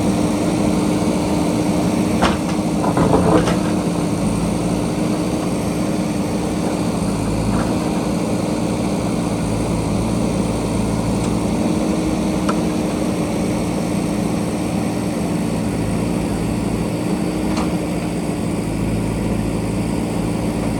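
JCB backhoe loader's diesel engine running steadily at a constant pitch, with a few short knocks from the machine working, the loudest cluster about two to three seconds in.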